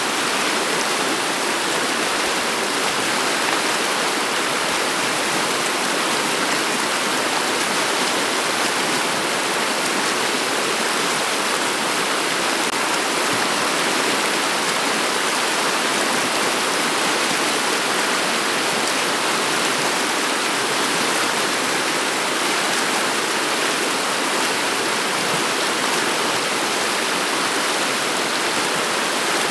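Shallow river water flowing and rippling over a stony bed: a steady, even rushing.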